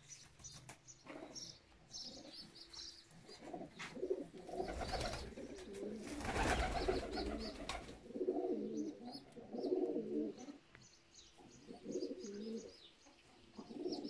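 Domestic pigeons cooing in the loft: repeated low, wavering coos about a second long, one after another, with short high chirps over them. A louder burst of rustling noise comes midway.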